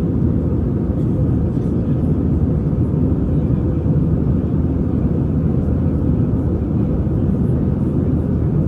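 Steady low rumble of an Airbus A320's jet engines and airflow heard inside the passenger cabin.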